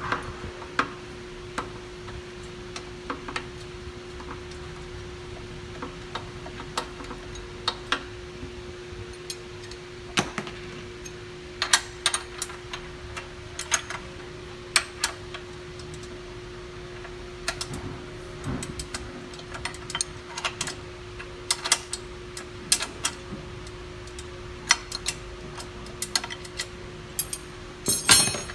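Irregular clicks and clinks of hand tools being worked on the machine during a drive shaft bearing replacement, over a steady hum. A louder cluster of knocks comes near the end.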